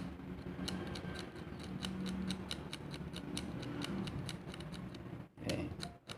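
A cutter blade scratching the chrome plating of a banana plug's metal body in short, repeated scraping strokes, roughly three a second. It is scoring through the chrome to bare metal so that solder will take.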